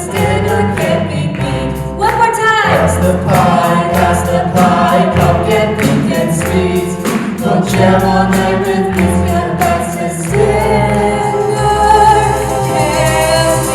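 A group of voices singing an upbeat song over a band with a steady drum beat and bass; about ten seconds in the voices settle into long held notes.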